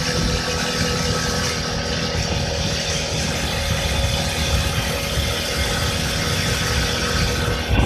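Small moped engine running steadily at cruising speed, with wind noise rumbling on the microphone.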